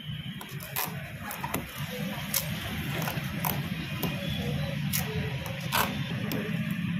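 Masking tape being pulled off its roll and torn into strips, heard as short sharp rips and ticks at irregular intervals, over a steady low hum.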